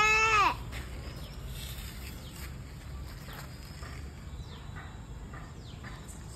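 A child's voice holding one drawn-out pitched call that ends about half a second in, followed by a steady outdoor background with a few faint, high, falling bird chirps.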